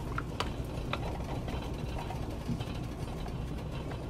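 Pot of butter sauce cooking on the stove: a steady low rumble with a few light clicks, about one a second, from stirring or bubbling.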